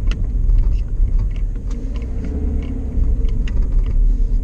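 A car driving, a steady low rumble with small clicks and rattles scattered over it.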